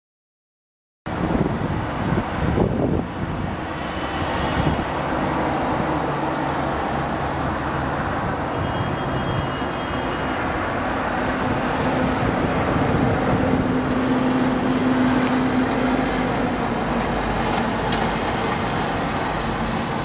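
Strong wind blowing and buffeting the microphone: a steady rushing noise that starts about a second in, with heavier low thumps from gusts in the first couple of seconds.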